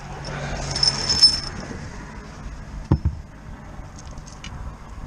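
Crinkling of a plastic bag and loose metal engine valves clinking as they are picked out by hand, with one sharp clink about three seconds in.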